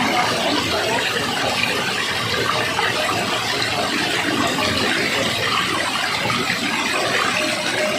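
Steady rush of flowing water, an even unbroken splashing hiss.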